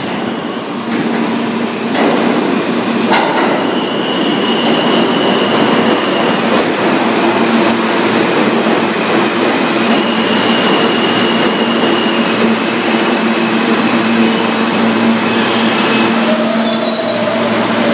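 R160 subway train pulling into an underground station: a steady rumble of steel wheels on rail, with a high wheel squeal coming in twice. Near the end there is a brief higher-pitched tone.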